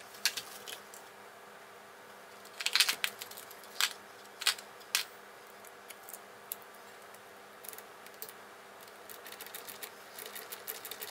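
Small hard clicks and taps of plastic kit parts and tiny screws being handled, the loudest few in the first five seconds, then light quick ticking near the end as a small screw is driven into the plastic RC chassis with a hand screwdriver.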